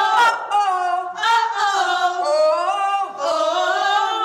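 A praise team singing a cappella, voices holding long notes and sliding between them.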